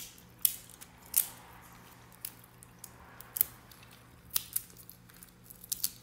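Nut shells (fıstık) being cracked open by hand or teeth, several sharp cracks at irregular intervals, the loudest about half a second and about a second in.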